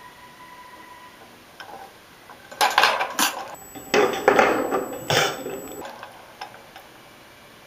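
Metal wire hamster cage rattling and clattering as the hamster scrambles on it: a burst of loud knocks and rattles lasting about three seconds, starting a little before the middle.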